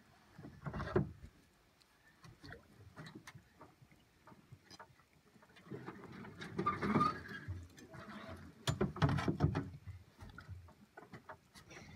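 Water splashing and sloshing with scattered knocks and clunks against an aluminum boat hull as a sunken beaver trap is hauled up from the river by hand. There are a few louder bursts of splashing, about a second in, around the middle and again later on.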